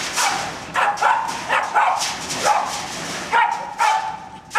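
Lhasa Apso dog barking repeatedly, about two barks a second, reacting to someone at the front door.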